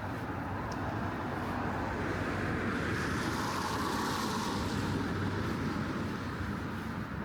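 A car passing on wet pavement, its tyre hiss swelling to a peak about four seconds in and then fading, over steady outdoor rain ambience.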